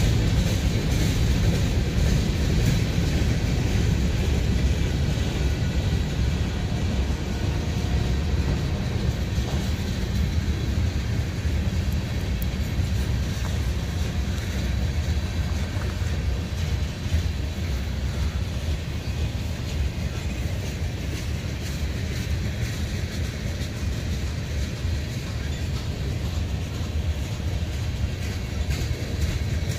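Manifest freight train cars rolling slowly past on the rails: a steady low rumble of steel wheels on track.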